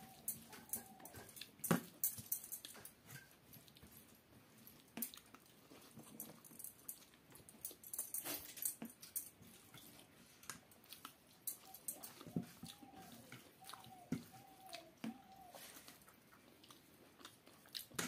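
A person eating rice by hand, heard close up: chewing and lip-smacking clicks, with fingers mixing rice on a steel plate. Short, arching whines are heard once near the start and several times in a row a little past the middle.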